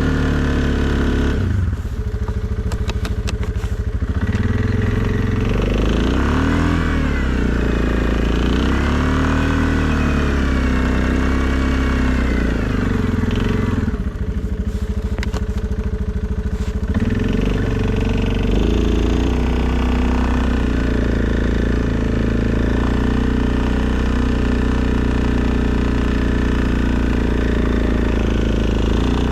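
2020 Suzuki KingQuad ATV engine running while plowing snow, its pitch rising and falling as the throttle is worked. Twice it falls back to a lower, steadier note, once about two seconds in and again about halfway through.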